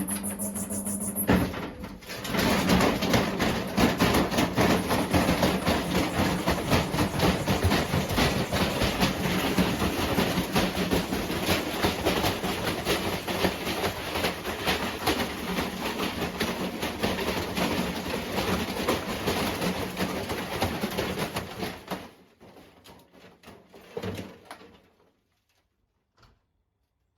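Washing machine in a destructive run, banging and rattling violently with a steady hum underneath for about twenty seconds, then stopping abruptly, followed by a few faint knocks.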